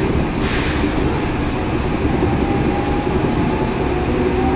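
Yurikamome 7300-series rubber-tyred automated guideway train running, heard from inside the car: a steady rumble with a motor whine that rises slightly in pitch near the end. A short hiss comes about half a second in.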